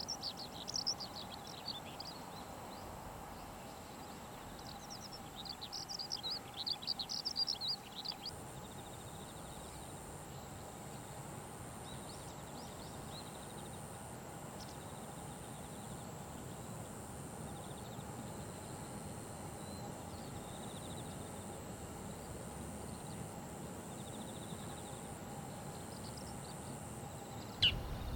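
A small songbird's quick, high twittering chirps, in a burst at the start and a longer run from about five to eight seconds in, then only scattered faint notes. Under it are steady outdoor background noise and a faint steady high-pitched tone.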